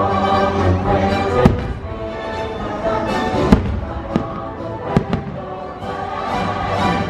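Fireworks bursting: sharp bangs at intervals, four or so, the loudest about three and a half seconds in, over the show's patriotic orchestral soundtrack playing through loudspeakers.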